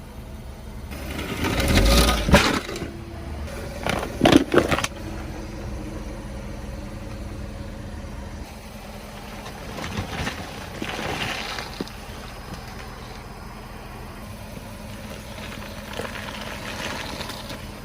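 A car's tyre rolling over and crushing objects. A loud crunch comes about two seconds in, then a quick cluster of sharp cracks a couple of seconds later, then softer crackling twice more, over a steady low hum.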